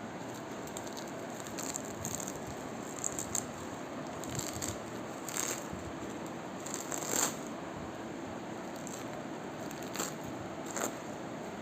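Hook-and-loop (Velcro) fastener handled close up, giving irregular short crunchy crackles over a steady hiss, the loudest about seven seconds in.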